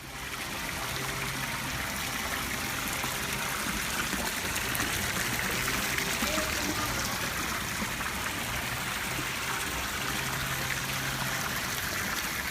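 Steady rush of running water, an even splashing with no breaks.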